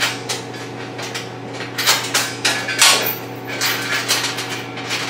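Small metal chain on a steel welding cart clinking and rattling as it is fastened around a gas cylinder: irregular metallic clinks and short clatters, the loudest about three seconds in.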